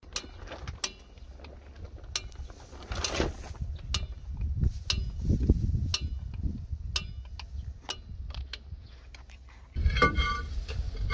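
Rear drum brake's star-wheel adjuster being turned with a screwdriver, clicking notch by notch about once a second over low handling rumble. Near the end the steel brake drum scrapes and rings as it is handled onto the hub.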